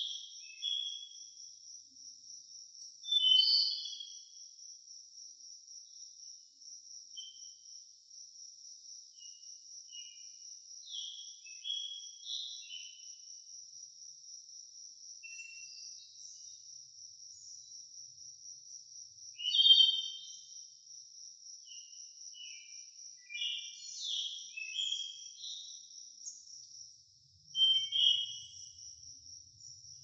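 Crickets trilling in a steady, high, evenly pulsed chorus, while birds call over it in short chirps and whistles at irregular intervals, loudest about 3 seconds, 20 seconds and 28 seconds in.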